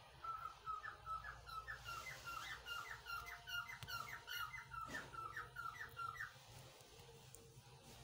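Indian ringneck parakeet giving a fast run of short, repeated calls, about three a second, that stops about six seconds in. A single click about five seconds in.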